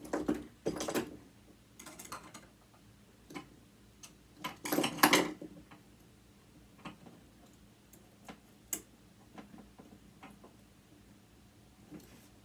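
Small metal parts and a screwdriver being handled while a sewing machine motor is taken apart: scattered light clicks and taps, with two louder bursts of scraping and rattling, one in the first second and one about five seconds in.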